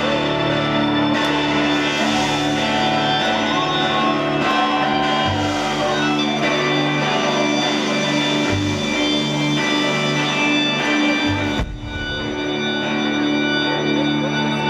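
Rock band playing live: an instrumental passage with guitars over steady held chords, with a brief drop about twelve seconds in before the band comes back in.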